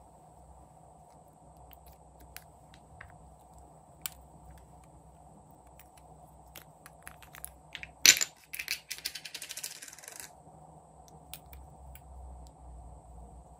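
Hard plastic cosmetic pot being handled and opened: a few faint taps, then a sharp click about eight seconds in, followed by a quick run of rattling clicks for about two seconds that stops suddenly.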